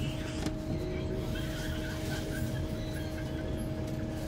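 Interior sound of a Golden Dragon XML6105JHEVG5C6 plug-in hybrid city bus: a steady low rumble from the drivetrain with a constant two-note hum over it.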